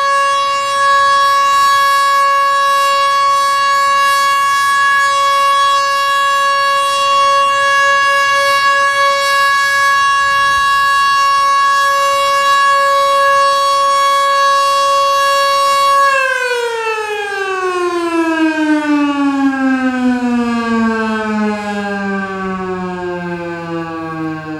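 Federal Enterprises Model 2 outdoor warning siren sounding a steady tone in its weekly test, then shutting off about sixteen seconds in and winding down, its pitch falling slowly and evenly.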